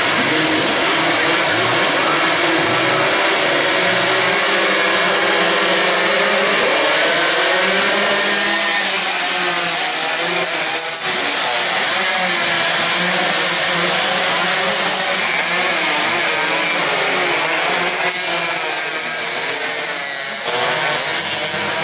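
A pack of small race motorcycles all running hard at once: many high-revving engines overlapping, their pitch rising and falling as the riders accelerate and shift. The engine note dips briefly about eleven seconds in and again near the end.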